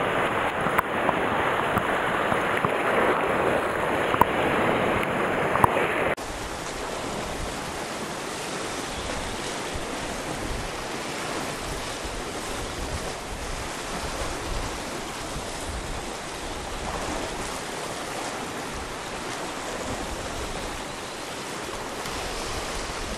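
Sea surf washing against rocks, with wind on the microphone, loud and close with a few sharp clicks at first; about six seconds in it drops to a quieter, steady wash.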